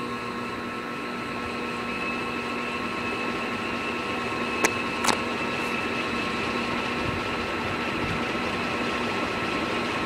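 Dayton 4C854 56-inch heavy-duty commercial ceiling fan running steadily: a motor hum with several steady whining tones over the rush of air. Two sharp clicks about half a second apart come around the middle.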